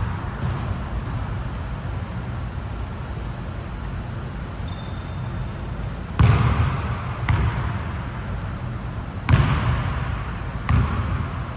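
Basketball bouncing on a hardwood court, four separate sharp thuds with ringing echoes in the second half, over steady room hum.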